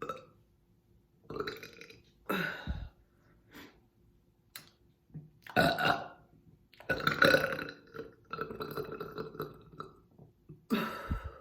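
A run of deliberate, on-command burps: about six separate belches with short gaps between them. The loudest come near the middle, one stretching into a long, deep, drawn-out belch of about two seconds.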